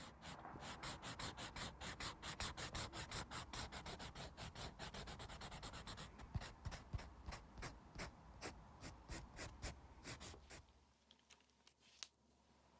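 Close-miked art marker strokes: quick, even scratching strokes about four a second, growing sparser about halfway through and stopping near the end except for a couple of light taps. This is colouring-in with a numbered colour marker, laying down and shading a colour.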